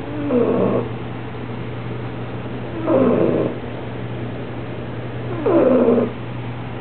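Six-month-old bulldog puppy snoring softly: three snores with a voice-like pitch, each about half a second long, coming about every two and a half seconds over a steady low hum.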